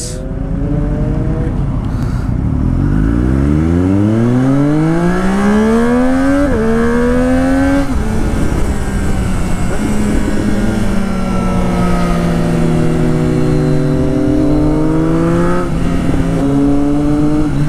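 Sport motorcycle engine under hard acceleration: the revs climb steadily for several seconds, step at a gear change about six and a half seconds in and climb again briefly. The revs then ease off and settle into a steady cruise, with another small shift near the end.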